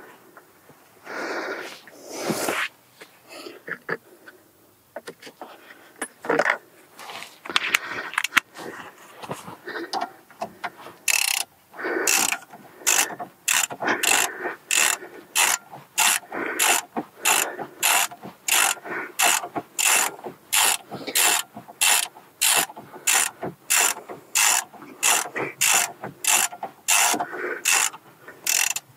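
Hand ratchet on a new brake caliper's mounting bolts. Scattered clicks and tool handling at first, then from about eleven seconds in a steady run of ratchet-clicking bursts, about two a second, as the handle is swung back and forth to run the bolt in.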